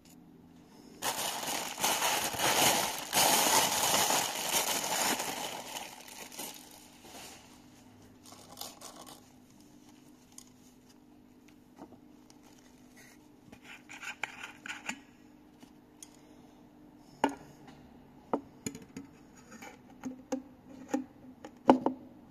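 Packaging crinkling and rustling loudly for about five seconds as a new needle roller bearing is unwrapped. This is followed by quieter scraping and a series of sharp clicks and taps from the bearing's steel rings being handled, the loudest near the end.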